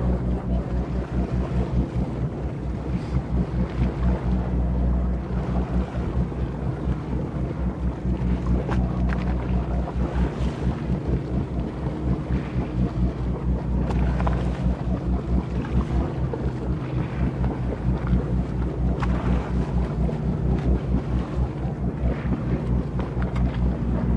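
Wind buffeting the microphone on a boat on open water, with a low steady hum underneath.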